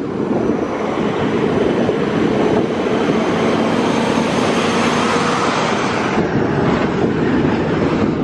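Canadian Pacific container freight train running through the rail yard, a steady even noise with no distinct clicks or horn.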